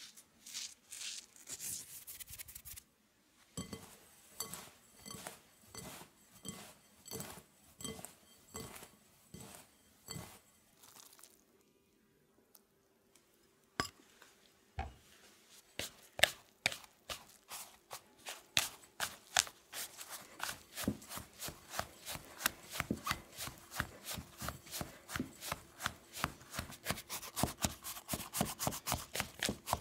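A flat plastic scraper cutting and scraping through crumbly shortcrust pastry mixture in a glass bowl. Spaced strokes in the first third, a short pause with one knock, then quick strokes, about three a second, through the second half.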